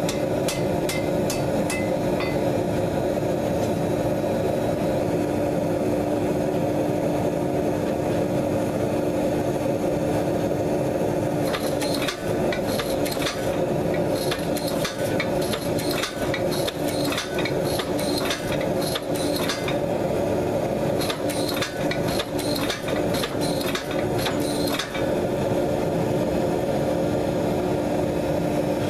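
Hydraulic forging press's power unit running with a steady hum. From about twelve seconds in, for roughly thirteen seconds, rapid sharp clicks and metallic clanks come as a hot steel billet is handled and squeezed between the press dies.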